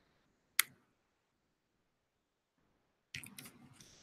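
Clicks from working a computer while the slide is advanced: one sharp click about half a second in, then a short run of fainter clicks and rustling a little after three seconds in.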